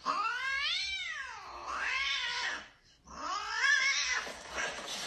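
A domestic cat giving two long drawn-out calls, each rising and then falling in pitch.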